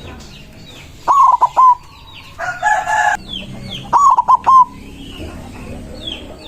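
White zebra dove (perkutut) singing its rhythmic cooing song, two loud phrases about three seconds apart. A short harsh call comes between them, with faint high chirps of small birds behind.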